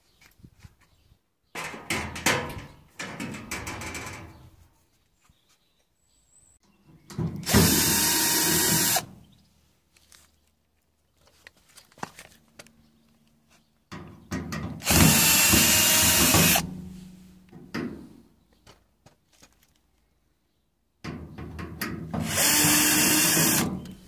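Cordless drill-driver working the screws of a tumble dryer's sheet-metal casing. It runs in four separate bursts of one to three seconds each; the first is weaker and uneven and the last three are loud.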